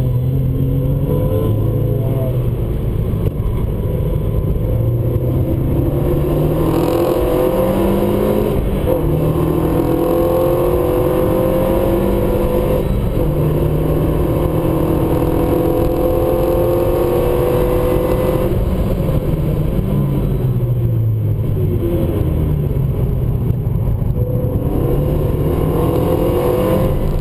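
Renault Megane RS's 2.0-litre turbocharged four-cylinder engine heard from inside the cabin under hard track driving: revs climb through the gears, hold high along the straight, fall away for a few seconds as the car slows late on, then climb again near the end.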